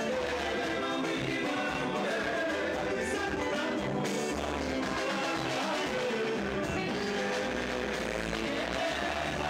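Congolese rumba band playing live: several male singers singing over electric guitars and a drum kit.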